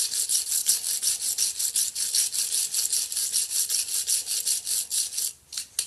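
Steel wire brush scrubbed rapidly back and forth over the metal hub plate of an on-car brake lathe, about six scraping strokes a second, cleaning off built-up dirt. The scrubbing stops a little after five seconds in, with two short last strokes near the end.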